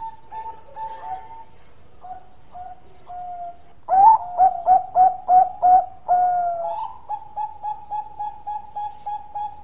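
Bangkok-type zebra dove (perkutut) singing its cooing song. Soft, rapid coos at first, then about four seconds in a loud run of about six short coos, a longer drawn-out note, and a quicker, softer train of coos at about four a second.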